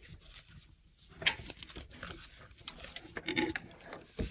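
Scattered clicks, light knocks and rustling as a loose engine-mount part is handled and held in place by hand, with one sharper click about a second in.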